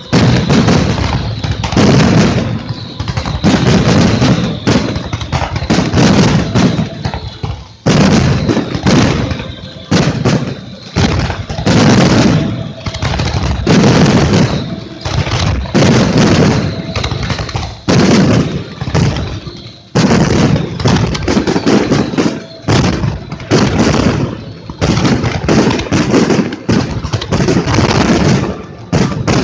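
Aerial firework shells bursting in a continuous barrage: loud bangs in quick succession, often several a second, with heavier booms every second or two.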